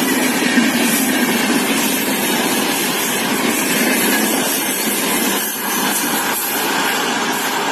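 Superfast express train running through at speed: a steady, loud rush of wheel, coach and wind noise.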